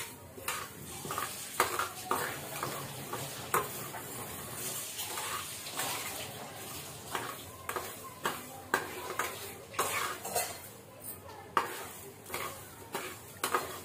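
Perforated steel spatula scraping and knocking against a steel pan as dry mustard seeds are stirred and roasted without oil, the seeds rattling under it. Irregular scrapes and clicks.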